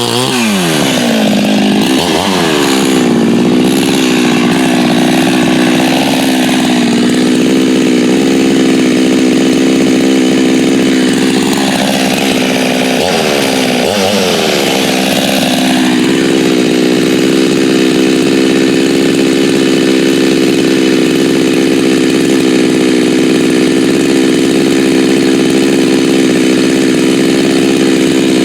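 86cc hybrid Husqvarna 372XP two-stroke chainsaw engine revved up to full throttle and held there. The revs drop and pick back up twice around the middle, then hold steady and high. It is running strong now that its remade steel impulse nipple has cured an air leak.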